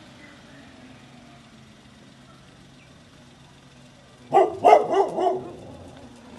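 Dog at a gate giving a quick run of several excited, yelping barks, about four seconds in.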